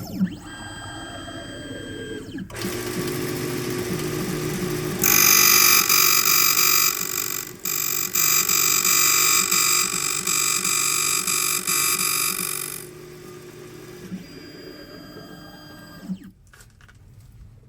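Key-cutting machine running while a Toyota door key blank is cut: the motor hums, then the cutter bites into the metal blank with a loud, high-pitched grinding from about five seconds in until about thirteen seconds, with a short break in the middle, before the machine winds down near the end.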